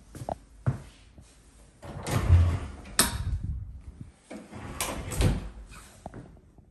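Interior panelled door opened by its knob and shut again: latch clicks and thuds. The loudest stretches come about two and five seconds in.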